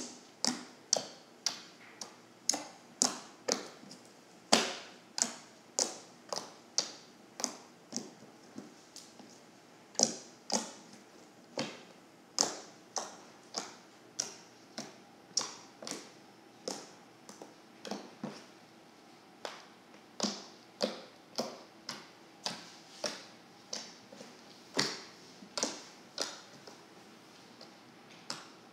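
Thick white slime being poked and pressed with fingers, giving a steady string of sharp little pops and clicks, about one or two a second.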